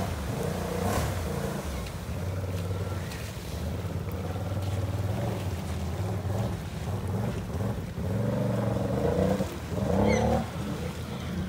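ATV engine running and revving up and down under load as the quad ploughs through deep, muddy water, louder near the end.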